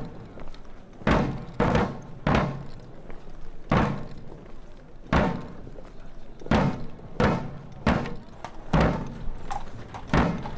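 A series of sharp thuds, roughly one a second at an uneven pace, each with a short ringing tail.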